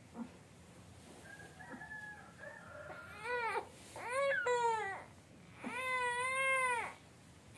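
Baby girl crying: soft whimpers first, then three wails that rise and fall in pitch, the last one the longest.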